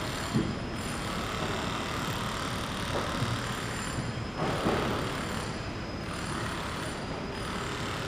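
Construction site ambience: a steady mechanical rumble of machinery and traffic, with a few short knocks.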